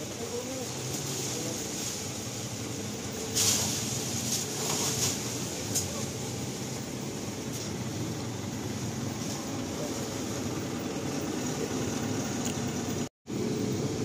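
Steady rumble and street noise from a slow-moving truck, with faint voices. A short burst of rustling about three and a half seconds in, as the truck brushes through tree branches.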